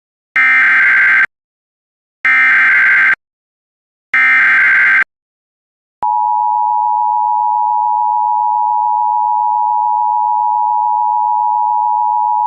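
Emergency Alert System header: three bursts of warbling SAME digital data tones, each just under a second long and about two seconds apart, then the steady two-tone EAS attention signal coming on about six seconds in and holding.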